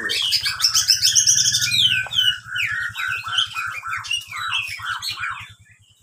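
Caged oriental magpie-robin (kacer) singing a fast, varied run of chirps and whistles that breaks off about five and a half seconds in.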